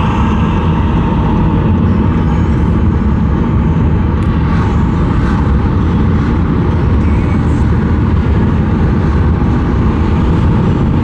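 Steady road and engine noise of a car driving, heard from inside the cabin.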